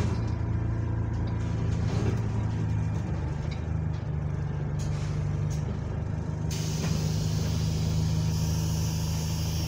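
Bus diesel engine running, heard from inside the passenger cabin: a steady low drone whose pitch steps slightly a few seconds in. A hiss joins it about two-thirds of the way through.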